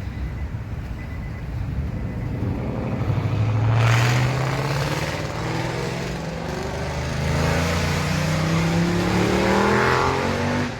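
Ford 5.0-litre Coyote V8 accelerating under load. The engine note rises sharply about three seconds in, then climbs steadily in pitch again through the second half.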